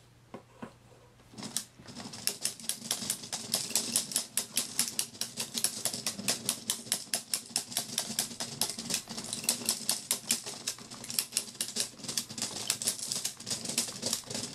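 Cylindrical marble dot-matrix display running: its single stepper motor hums while airsoft BB pellets click and rattle through the 3D-printed mechanism as they are lifted and set in place as pixels. The rapid, uneven clicking starts about one and a half seconds in, after a few faint clicks.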